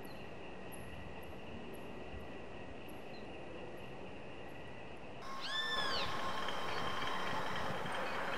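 Steady background hiss with faint high chirps. About five seconds in it grows louder, and a single short animal call rises and then falls in pitch.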